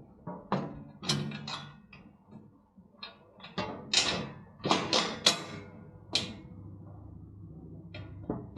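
Heavy steel parts of a motorcycle wheel chock knocking and clanking together, about a dozen separate sharp hits at uneven spacing, as the front support and stand base are handled and bolted together.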